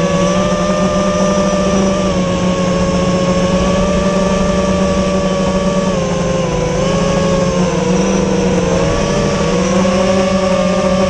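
FPV quadcopter drone's electric motors and propellers whining steadily in flight, the pitch dipping briefly a couple of times and rising again as the throttle changes.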